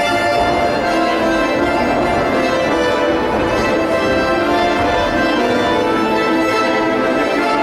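Recorded accompaniment music with sustained organ-like chords, playing steadily at a constant level.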